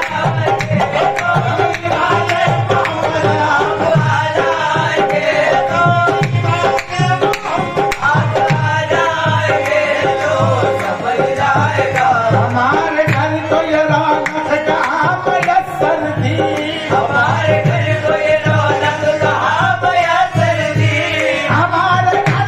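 Qawwali: male voices singing a long, wavering melodic line over harmonium, with a steady hand-drum beat underneath.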